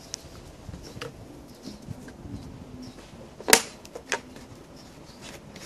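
Plastic fuel-mixing bottle being handled: light plastic clicks, a sharp knock about three and a half seconds in as it is set down on the table, and a smaller click just after.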